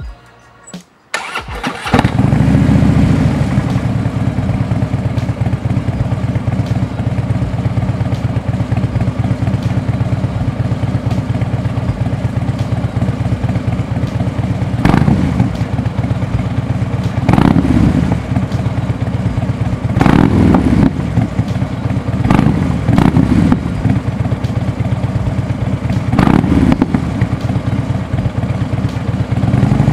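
Harley-Davidson V-twin bagger engine breathing through Bassani DNT slip-on mufflers with three-step baffles. It is cranked and catches about two seconds in, then settles into a steady idle. Several short throttle blips come in the second half, and the revs rise near the end.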